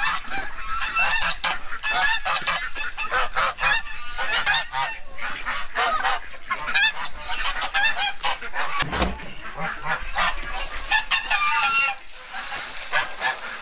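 Domestic geese honking over and over, several birds calling over one another; the calls thin out about a second before the end.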